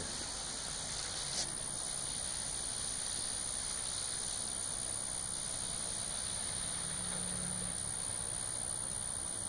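Steady hiss of rain falling on wet pavement and standing water, with one faint click about a second and a half in.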